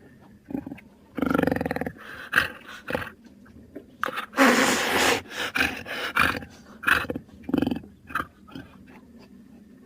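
A string of short growls and snarls, with one longer, loud rasping roar about four seconds in.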